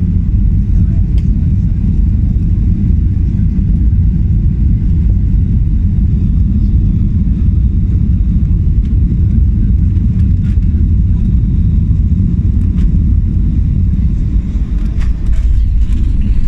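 Cabin noise of a Boeing 737 jet airliner on final approach heard from over the wing: a loud, steady low rumble of engines and airflow. Near the end the level dips briefly, then comes back with a few light clicks and knocks as the aircraft reaches the runway.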